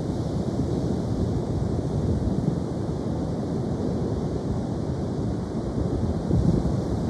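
Ocean surf: steady wash of waves, with wind noise on the microphone.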